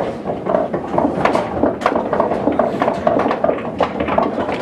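Scattered sharp clicks of pool balls striking each other at many tables, over a steady murmur of voices.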